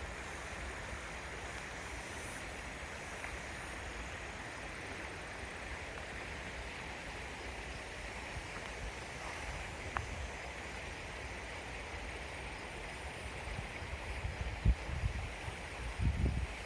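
Steady rushing of a flowing creek. Near the end, a few low bumps of wind on the microphone.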